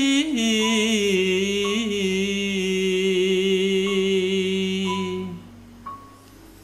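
A solo voice singing a slow Javanese chant-like song, holding long, wavering notes that step down in pitch. It dies away about five seconds in.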